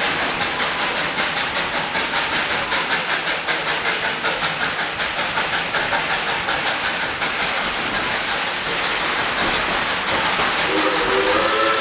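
Narrow-gauge steam locomotive working along with quick, even exhaust chuffs over a steady steam hiss. The beats fade toward the end, and near the end its steam whistle begins sounding a chord.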